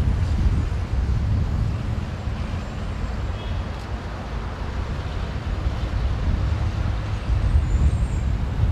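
Road traffic passing on a busy road, with a steady, choppy low rumble of wind on the microphone.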